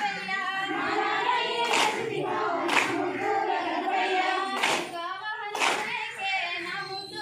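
A group of women singing a Bathukamma folk song together in chorus, with the whole circle clapping hands in time: two pairs of claps, each pair about a second apart.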